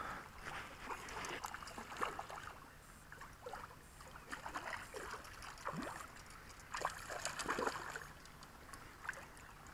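Hooked trout splashing at the water's surface as it is reeled in toward the bank: faint, irregular splashes, in a flurry over the first two seconds and again about seven seconds in.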